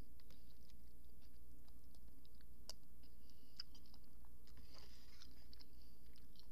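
A dog chewing soft food: faint wet chewing with scattered small clicks, over a steady low hum.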